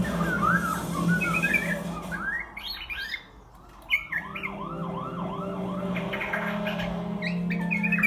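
White-crowned shama singing: a string of varied chirps and whistled phrases, then a run of about five matching arched whistled notes, roughly two a second, after a short pause.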